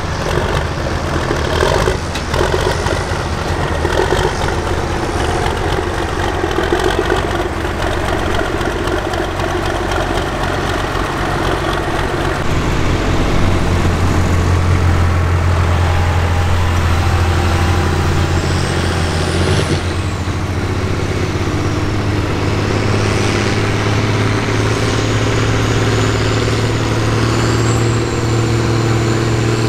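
Farm stock diesel pulling tractor's engine running steadily with a deep hum that grows louder about halfway through, and a thin high whine that rises slowly over the last several seconds.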